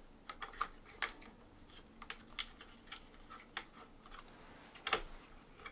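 Faint, irregular small clicks and taps of fingers pushing a silicone sock onto a 3D printer hotend and pressing around the print head, with one louder knock near the end.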